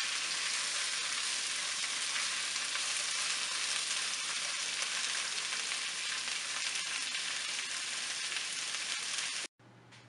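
Sliced onions and bell peppers sizzling steadily as they sauté over high heat in a frying pan, stirred with a spatula at first. The sizzle cuts off suddenly near the end.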